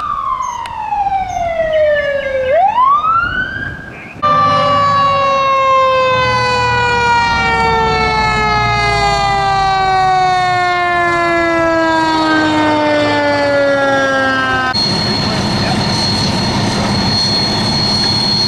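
Fire engine siren wailing: it falls, rises again, then after a cut one long slow wind-down of about ten seconds. Near the end it gives way to a fire engine's steady running noise with a thin high whine.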